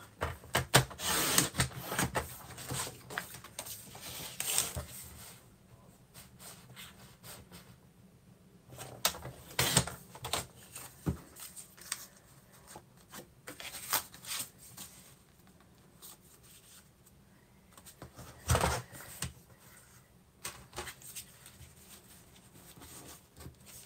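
Paper and cardstock being handled on a desk: rustling, sliding and light clicks and taps, densest in the first few seconds, then in short scattered bursts.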